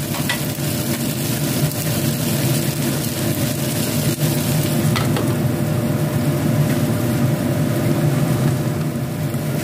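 Shallots, garlic, chillies and aromatics frying in oil in a pan on a gas stove: a steady sizzle over the low, even rumble of the burner.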